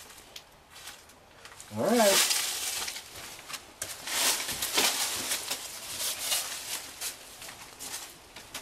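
Footsteps crunching on gravel and rubble in a concrete tunnel, about two steps a second. About two seconds in, a brief moan-like vocal sound rises and falls in pitch just as the walking starts.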